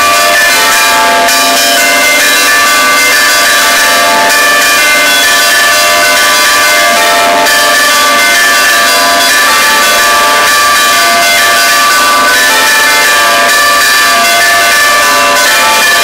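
Large tower bells swung on wheels by hand-pulled chains, ringing very loudly at close range, their strokes overlapping into one continuous wash of many tones.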